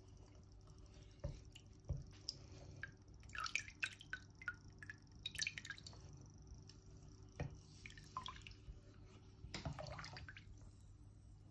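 A wooden spoon stirring hot homemade cooking oil in an aluminium pot, with soft liquid slops and squelches and a few sharp knocks of the spoon against the pot, over a low steady hum.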